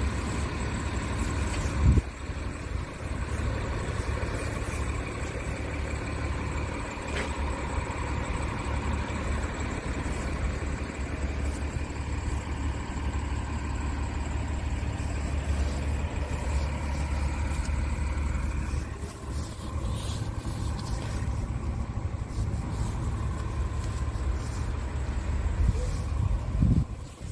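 Scania S tractor unit's diesel engine idling steadily, with a single knock about two seconds in.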